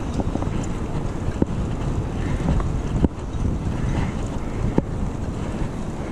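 Wind buffeting the microphone of a chest-mounted action camera while a mountain bike rolls over brick paving, giving a steady low rumble of tyres on the pavers. Three sharp knocks come through, about a second and a half, three and five seconds in, as the bike jolts over the bricks.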